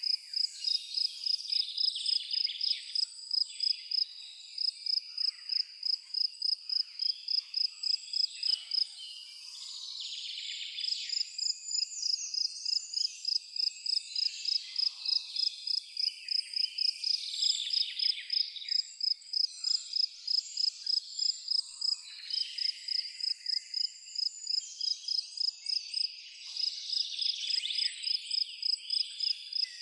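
A cricket chirping in an even rhythm, about three high chirps a second, breaking off briefly about nine seconds in and again near the end, while several birds sing varied calls behind it.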